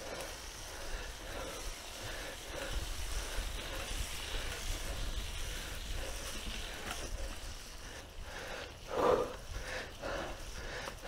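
Mountain bike riding along a dirt trail: tyres and frame rattling over the ground with a low, uneven rumble, and a short louder sound about nine seconds in.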